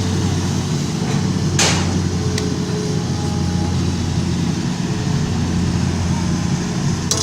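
Excavator's diesel engine running steadily at a constant pitch, with a single sharp click about a second and a half in.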